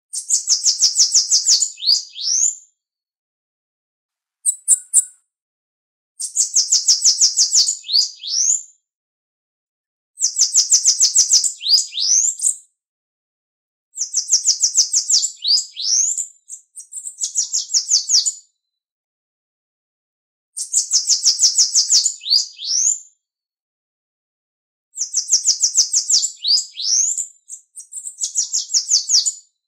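Bananaquit (Coereba flaveola) singing a repeated high song. Each of about six phrases is a rapid buzzy trill ending in a few rising notes, with pauses of a second or two between them.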